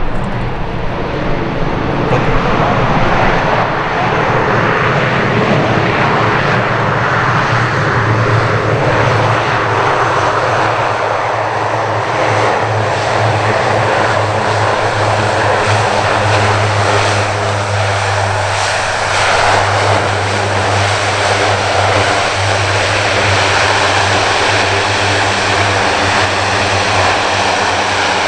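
Four Rolls-Royce AE 2100D3 turboprop engines of a C-130J-30 Super Hercules running steadily as it taxis past on the runway: a deep, steady propeller hum under a broad rush of engine noise.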